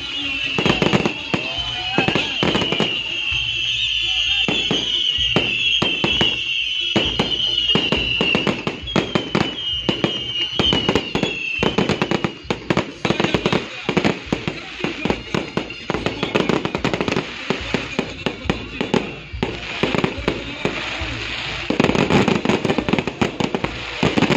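Fireworks display: a rapid, irregular string of loud bangs and crackles throughout. A high wavering whistle runs over the first half and breaks off about halfway.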